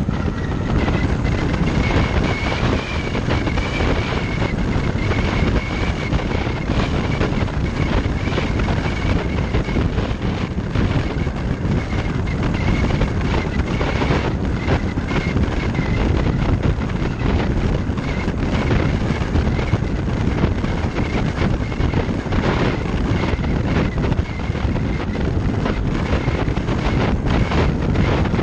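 Wind rushing over a windshield-mounted GoPro Hero Session on a moving car: a steady low rush of airflow buffeting the microphone, with road noise, and a thin steady whistle above it that weakens near the end. The whistle comes from the camera sitting too close to the top edge of the windshield.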